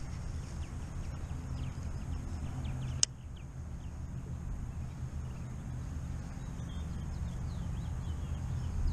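Small birds chirping in quick, short high notes over a steady low rumble, with a single sharp click about three seconds in.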